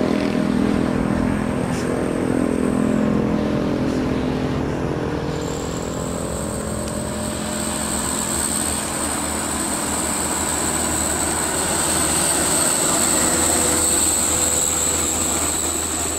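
Uphill road traffic: loaded diesel cargo trucks, cars and motorcycles passing, with a heavy truck engine running under load and a low rumble throughout. An engine's pitch is strongest in the first few seconds, and a steady high whine sets in about five seconds in.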